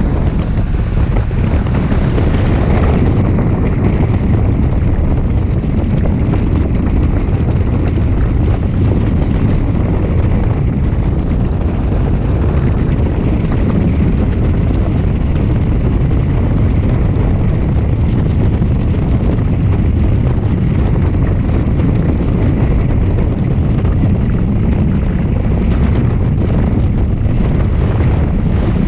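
Steady wind noise from the rushing airflow of a hang glider in flight buffeting the microphone: a constant low rumble with hiss above it.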